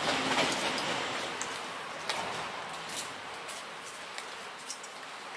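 Rustling and scraping as a cat is pulled off a tree trunk and held against a man's shirt, with a few sharp clicks and taps. The rustling is loudest at first and fades away.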